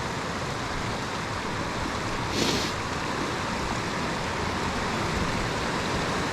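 A river rushing over rocks, a steady even roar of water. A brief scuffing noise about two and a half seconds in.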